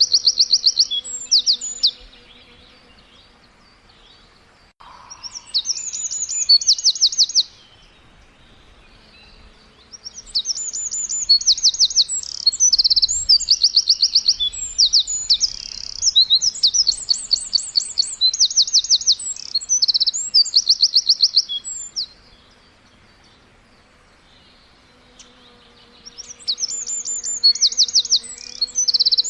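Birds chirping in bouts of rapid, high, repeated trilled notes a few seconds long, separated by pauses of a couple of seconds. A faint steady hum sits underneath near the start and the end.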